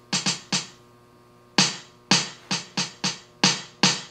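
LinnDrum drum machine playing back a simple programmed pattern: sharp sampled drum hits, a quick run of three, a pause of about a second, then a steadier run of hits.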